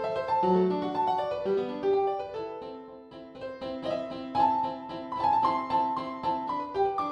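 Background music: a piano melody with fast-moving notes.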